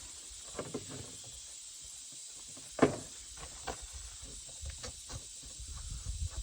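Scattered light clicks and handling knocks, with one sharper knock about three seconds in, over a faint steady hiss.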